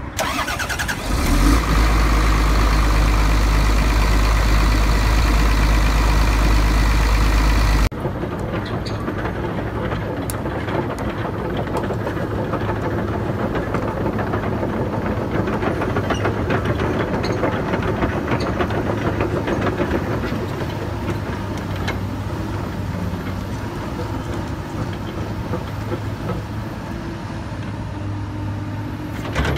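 Komatsu PC270LC-8 excavator's turbocharged diesel engine starting about a second in and running loud and steady close to the open engine bay. After a sudden drop near eight seconds, the excavator runs steadily from farther off while its arm and bucket move.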